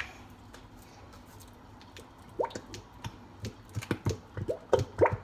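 Plastic squeeze bottle of barbecue sauce being squeezed, giving a run of short wet squelches and squirts. These begin about two seconds in and come faster near the end.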